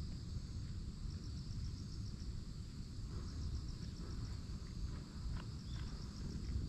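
Insects chirping in short, high trills about once a second, over a steady low rumble.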